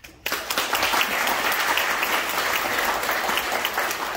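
An audience applauding: many hands clapping together, breaking out sharply just after the start and keeping up a steady level.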